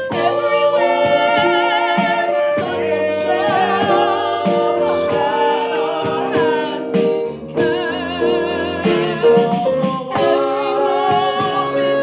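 Singing with instrumental accompaniment: a song with held notes sung with vibrato.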